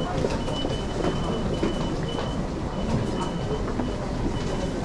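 Busy train-station crowd passing through IC-card ticket gates: footsteps and faint chatter over a steady low rumble, with short high electronic beeps repeating every half-second or so.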